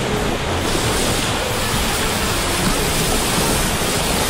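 Whitewater rapids rushing around a kayak: a loud, steady wash of churning river water.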